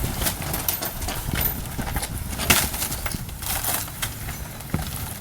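Irregular knocks, clatters and scrapes of wooden shed debris being dragged and moved over the ground, with a rumble underneath and one sharper knock about halfway through.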